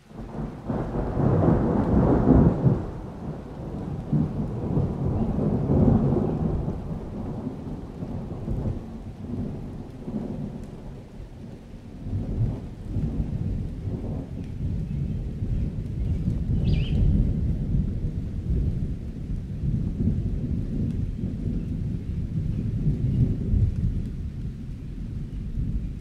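Thunder breaks in suddenly and rolls as a long, low rumble over steady rain. It is loudest in the first few seconds, then swells and fades in waves without stopping.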